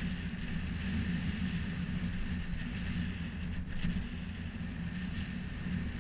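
Wind buffeting the camera's microphone high on the top of a church tower: a steady, fluttering low rumble.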